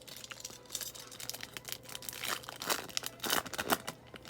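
Plastic foil wrapper of a baseball card pack crinkling and tearing as it is opened, with a dense run of crackles in the middle.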